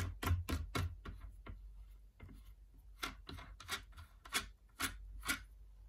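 Hand-turned Z-axis adjustment screw of a G. Boley watchmaker's milling machine being wound to raise the head. It gives a run of short dry rubbing clicks: four quick ones in the first second, a few faint ones, then another cluster from about three seconds in, the last two loudest.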